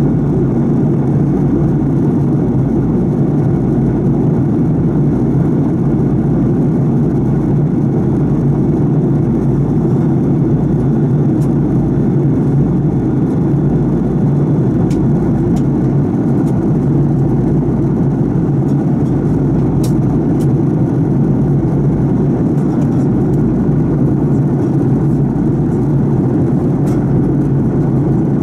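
Fokker 70's rear-mounted Rolls-Royce Tay turbofan running steadily in flight, heard inside the cabin right beside the engine: a constant low drone with a strong hum.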